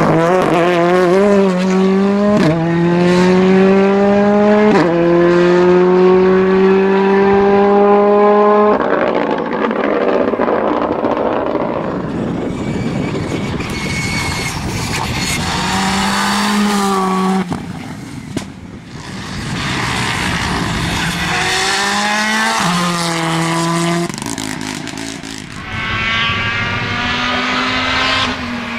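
Turbocharged four-cylinder R5 rally cars, a Ford Fiesta R5 and a Škoda Fabia R5 among them, accelerating hard past one after another. In the first car's pass the engine pitch climbs and drops at two upshifts within the first five seconds. Further cars rev through their gears later on.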